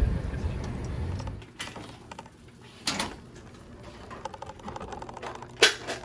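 Low car rumble that cuts off about a second and a half in. Then a quieter stretch with a few sharp knocks or clatters, the loudest near the end.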